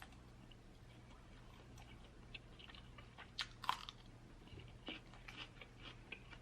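A person biting and chewing food, with soft wet mouth clicks. The loudest bite comes about three and a half seconds in, followed by a run of smaller chewing clicks.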